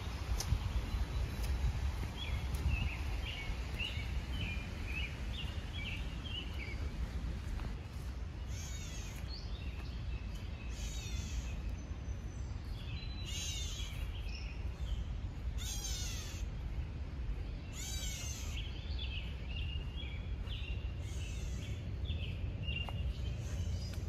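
Gray catbird calling: a cat-like, down-slurred mew, repeated about seven times at intervals of two to three seconds from about a third of the way in.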